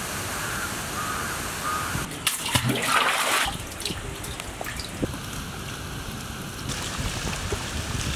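Water splashing as a bucket on a rope is dipped into a well and hauled out, loudest about two and a half to three and a half seconds in. Then water pours and trickles steadily over vegetables being washed.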